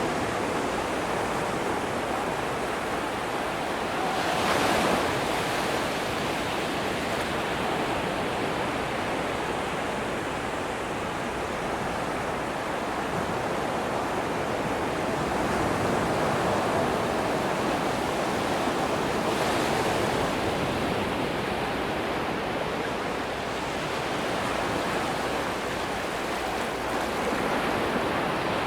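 Atlantic surf washing steadily onto a sandy beach. A wave breaks louder about five seconds in, and a softer one breaks around twenty seconds in.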